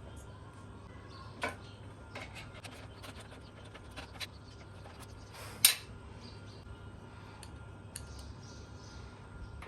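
Scattered light clicks and metallic clinks, as of hard parts being handled, the sharpest about halfway through, over a steady low hum.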